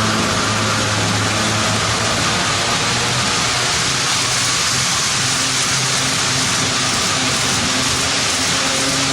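HO-scale model train running on the track: a steady rushing noise of wheels on rail with a low, even hum underneath.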